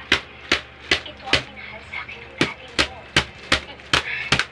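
An empty plastic bottle whacked repeatedly against a person, about a dozen sharp slaps at two to three a second, with a short pause about two seconds in.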